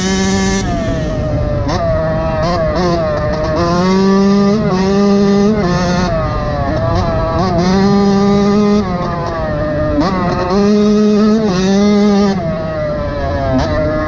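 KTM SX125 two-stroke single-cylinder engine under hard riding, revving up and holding high revs, then dropping in pitch briefly before climbing again, several times over.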